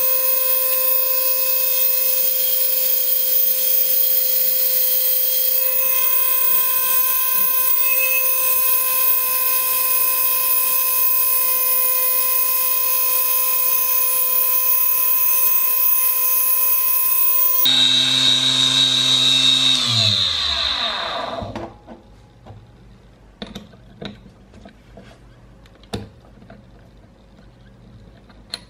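Mini lathe's DC motor running with a steady high whine while a hand-held 2 mm drill bit bores into the end of a 2.9 mm pin spinning in its chuck. About 18 seconds in the tone changes, then the motor winds down with a falling whine and stops. A few light clicks follow as the chuck is handled.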